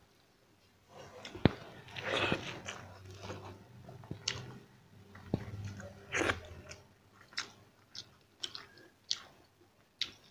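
Close-miked sounds of a man eating rice, dal and greens by hand: chewing and wet lip smacks, with a few sharp clicks, then a string of short separate smacks near the end.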